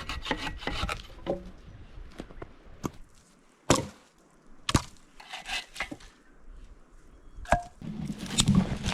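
Firewood being cut by hand. There is a quick run of strokes in the first second, then single sharp chopping strikes into wood, about four of them, spaced a second or more apart.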